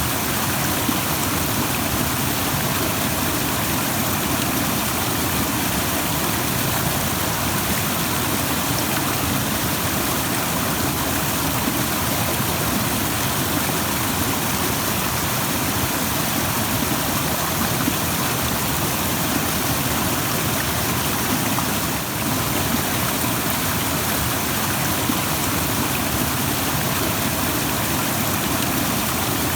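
A rushing stream: fast water running over rocks in a steady, dense hiss, with no break or change.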